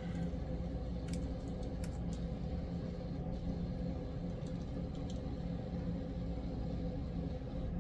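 N scale Atlas/Kato RS3 locomotive model running on a test track: a steady hum from its small electric motor and gearing, with a few faint clicks.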